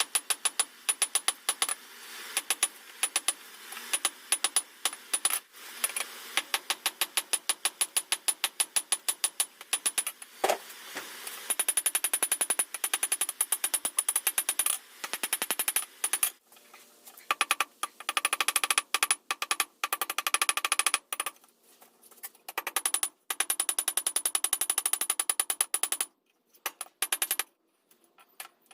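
Hand hammer striking hot steel on an anvil in fast, even blows, about four or five a second, each with a metallic ring. About halfway through the blows come in shorter bursts with brief pauses.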